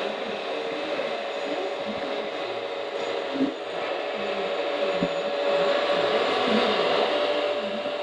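Radio-controlled scale tractor pulling a loaded flatbed trailer: its electric drive motor and gears whir with a steady whine, getting louder in the second half as it comes closer. A couple of short knocks about three and a half and five seconds in.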